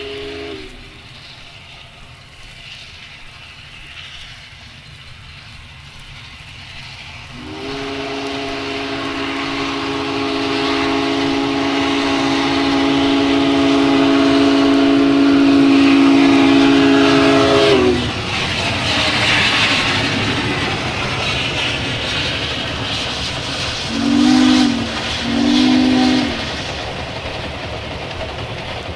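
Duluth, Missabe & Iron Range No. 225, a 2-8-8-4 Yellowstone steam locomotive, blowing its steam whistle, several notes at once: the end of one blast at the start, a long blast of about ten seconds, then two short blasts near the end. Under it the train's rumble swells, loudest near the end of the long blast.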